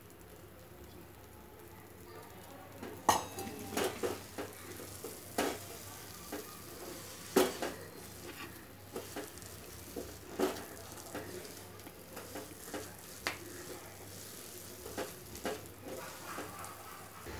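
Silicone spatula stirring a thick milk, coconut and dry-fruit mixture in a nonstick kadhai, with irregular taps and scrapes against the pan starting about three seconds in and recurring roughly once a second.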